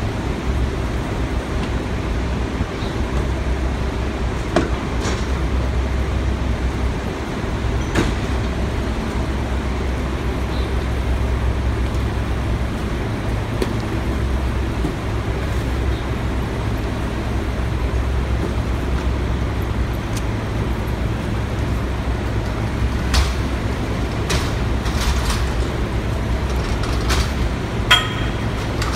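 Mack MR garbage truck's diesel engine idling steadily while cardboard and boxes are tossed into its McNeilus rear-loader hopper, with scattered knocks and thuds that come more often near the end.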